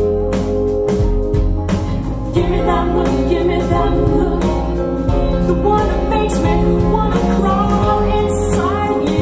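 Pop song playing back through CSS Criton 1TDX DIY two-way bookshelf speakers and picked up in the room: a woman singing over bass, guitar and drums.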